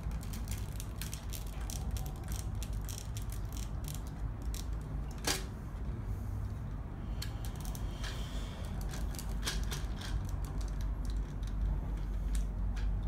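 Small plastic Lego pieces being handled: irregular light clicks and taps of minifigures and bricks, one sharper click about five seconds in, over a steady low hum.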